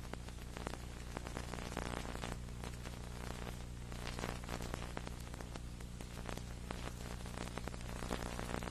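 Crackling static and hiss over a steady electrical hum, with no program sound: the recording's audio has dropped out.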